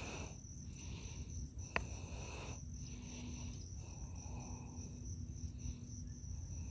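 Insects calling steadily: one high unbroken trill, with a lower chirping that comes and goes, over a low rumble. A single sharp click about two seconds in.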